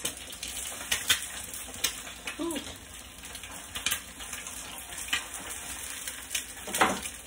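Eggs scrambling in olive oil in a frying pan, sizzling steadily, with scattered light clicks from stirring in the pan.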